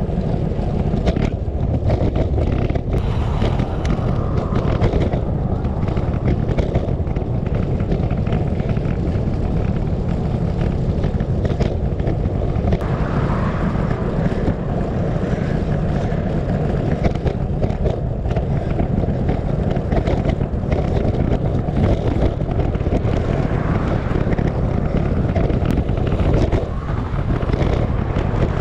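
Wind rushing over the microphone of a moving bicycle, a steady low rumble with scattered small knocks.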